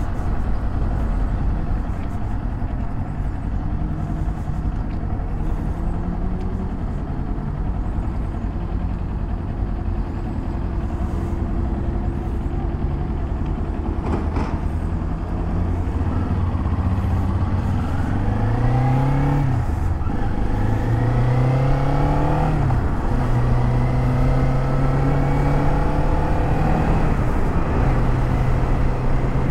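Kawasaki Z400's 399 cc parallel-twin engine running at a steady cruise, then about two thirds of the way in it accelerates through two gear changes, the pitch rising and dropping at each shift, before settling into an even cruise.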